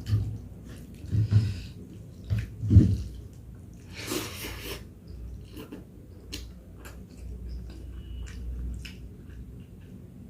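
Close-up eating sounds: chewing and small wet mouth clicks of someone eating rice with dal and vegetables, with a few low thuds in the first three seconds and a short breathy hiss about four seconds in.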